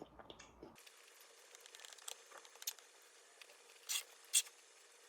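Light crinkling and rustling handling noises with scattered small clicks, and two louder brief rustles about four seconds in.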